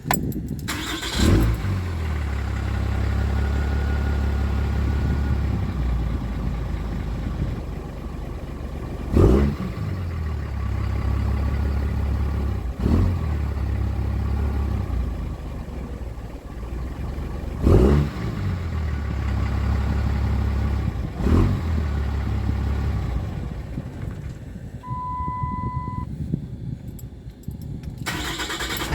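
Cummins 6.7-litre inline-six turbodiesel idling roughly, its idle broken by a sudden stumble about five times, every few seconds. Near the end the engine sound drops away and a single steady beep sounds for about a second, then the engine picks up again right at the end.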